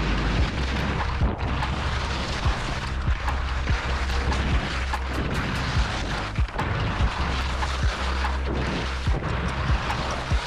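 Skis scraping and knocking over moguls in a fast descent, with wind buffeting a helmet- or chest-mounted action camera's microphone as a heavy rumble. Sharp knocks come every second or so as the skis hit the bumps.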